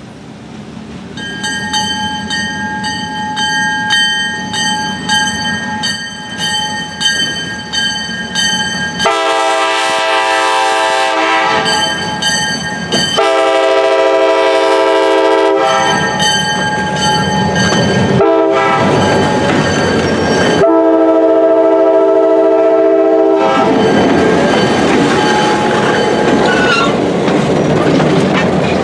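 Union Pacific EMD E9 diesel passenger locomotive approaching: its bell rings steadily from about a second in, and its horn sounds four long blasts, with the bell heard in the gaps. After the last blast the engines and wheels run loudly past as the locomotive and passenger cars roll by.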